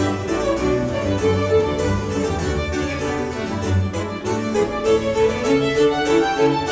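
Instrumental background music in a classical style, with harpsichord and violin playing.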